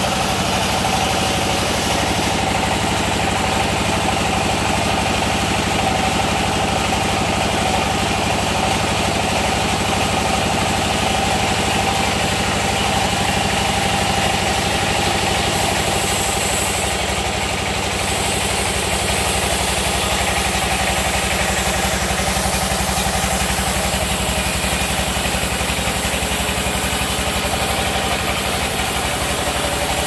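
Sawmill machinery running steadily: an even, engine-like drone at a constant level.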